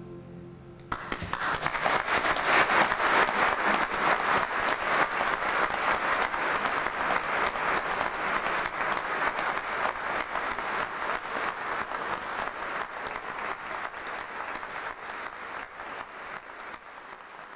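Audience applauding. It breaks out suddenly about a second in, just after the last notes of a voice-and-guitar song fade, then slowly dies away toward the end.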